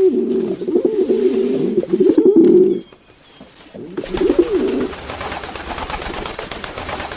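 Domestic pigeons cooing, several low warbling coos overlapping, which stop about three seconds in. After a short pause one more brief coo comes, followed by a steady rustling noise.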